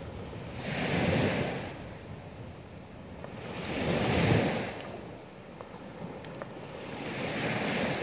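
Small sea waves breaking and washing up a sandy beach, three surges of wash that swell and fade about three seconds apart.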